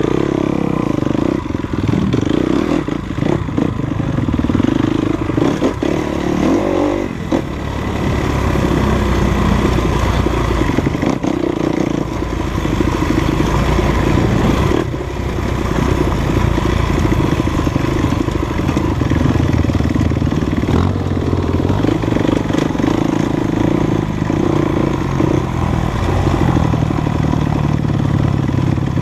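Dirt bike engine running under way on a trail, its revs rising and falling, with knocks and rattles from the bike over rough ground.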